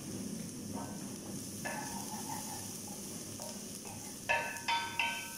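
Onion and spices sizzling steadily in butter and oil while a wooden spoon stirs them in an enamelled pot. The spoon scrapes and knocks against the pot with short ringing clanks, three louder ones near the end.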